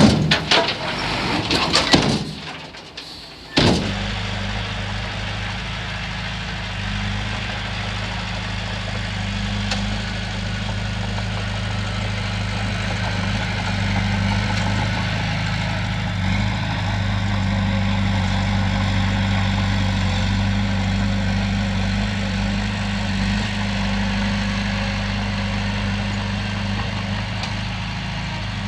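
A loud rushing noise for the first few seconds, then, after an abrupt change about three and a half seconds in, a heavy diesel engine of the earthmoving machinery running steadily at low revs with a deep even hum.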